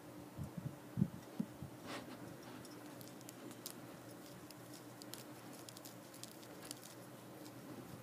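Faint handling noise close to the microphone: a few soft knocks in the first two seconds, then light scattered clicks and scratches.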